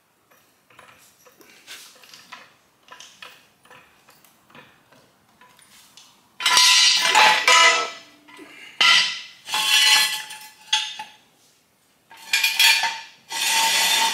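Steel jack stands being handled and set down: light metal clicks at first, then several loud stretches of metal clanking and scraping with a ringing tone, from about six seconds in.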